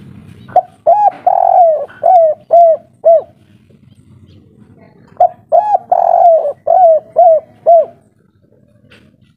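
Spotted dove (derkuku, tekukur) cooing its 'kuk 3' song twice. Each phrase is a run of about six coo notes, the third held longer, and the two phrases come about two seconds apart.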